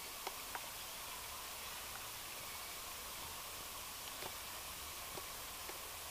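Faint, irregular clicks of a common bronzewing pigeon pecking at seed in a feeder tray, about half a dozen over a steady low hiss.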